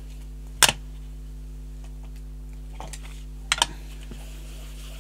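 Short, sharp clicks of craft supplies being handled while a dark blue colour is picked up: one loud click about half a second in, a faint tick near three seconds, then two quick clicks just after three and a half seconds, over a steady low hum.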